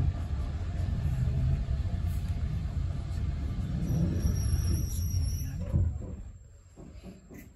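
Steam-hauled railway carriage running on the track, a heavy steady rumble with a brief high-pitched squeal about four seconds in. The rumble falls away abruptly near the end, leaving it much quieter.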